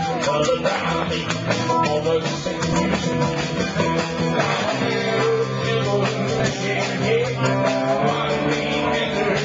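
Live rock band playing: electric guitar over a drum kit, loud and continuous.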